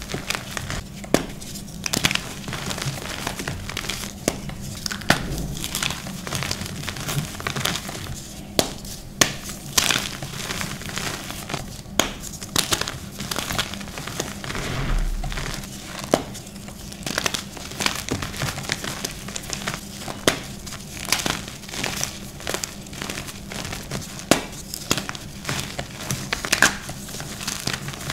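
Hands crushing and crumbling blue reformed gym chalk chunks in loose powder: a soft dusty crunching, broken by irregular sharp crackles as pieces snap.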